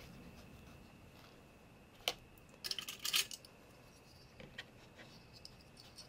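Metal binder clips clicking and clinking as they are handled and clipped on: one sharp click about two seconds in, a short clatter of clicks about a second later, then a few faint ticks.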